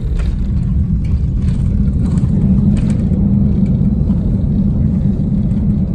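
Steady low rumble inside an airliner cabin as the plane rolls along the runway after landing.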